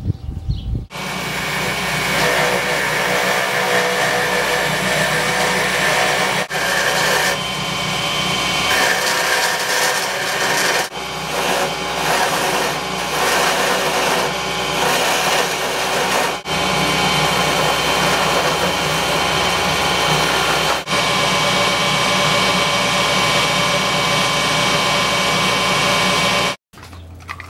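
Wood lathe running while a hand-held turning tool cuts the spinning wooden piece: a steady scraping over the motor's hum. It starts abruptly about a second in, breaks off briefly every few seconds and stops suddenly near the end.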